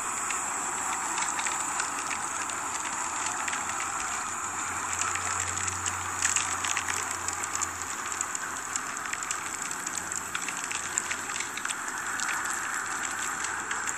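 Eerie ambient soundtrack of a horror short: a steady hiss with a low hum that swells in the middle and a few faint clicks.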